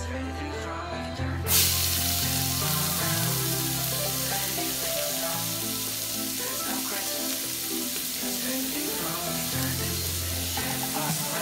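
Diced bell peppers dropped into hot sesame oil in a pressure cooker's inner pot on sauté, sizzling that starts suddenly about a second and a half in and then runs on steadily. Background music plays throughout.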